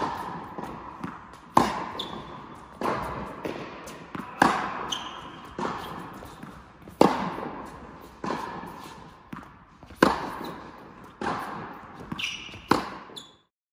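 Tennis ball struck with rackets in a baseline rally on an indoor court: sharp, echoing pops from the hits, the loudest about every three seconds, with softer impacts in between. The sound cuts off just before the end.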